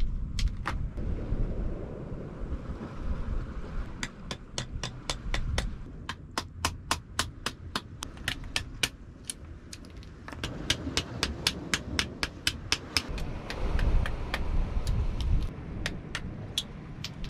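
Quick sharp taps of an oyster knocker chipping rock oysters off the rock, coming in runs of several a second with a short pause midway, over wind rumbling on the microphone.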